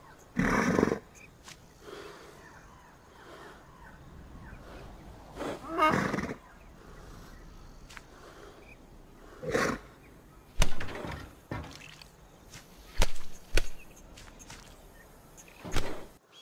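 Zebra calling: short harsh calls spaced a few seconds apart, the first about half a second in and another about six seconds in, with sharp clicks in the second half.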